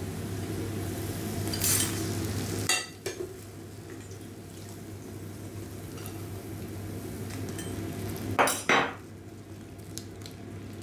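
Luqaimat dough balls sizzling in hot frying oil, with a metal skimmer knocking and clinking against the pan and the glass syrup bowl a few times; the loudest knocks come about two and a half seconds in and near the end.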